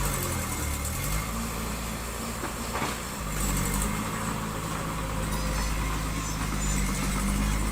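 Diesel engine of a construction machine running at a steady working pace. Its pitch dips briefly under load early on, then settles. There is a single clank about three seconds in.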